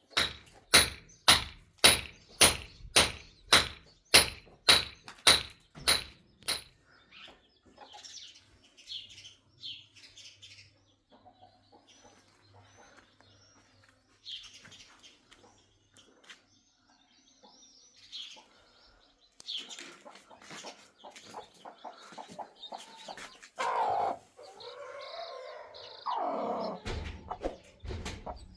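About thirteen sharp strikes with a high ringing edge, roughly two a second, which stop after six seconds. Then birds chirp, and near the end louder clucking-like sounds come in.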